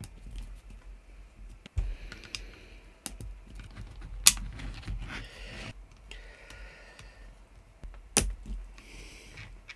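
Small clicks, taps and light rattles of an airsoft gun's metal gearbox shell and a screwdriver being handled during disassembly. There are three sharper knocks, at about two, four and eight seconds in; the one at about four seconds is the loudest.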